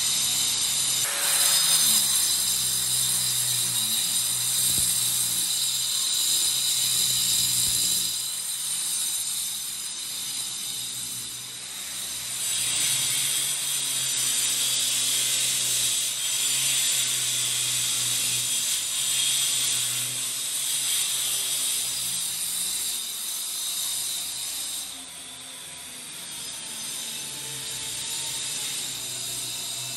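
Background music, steady throughout, with a bass line that changes note every second or two.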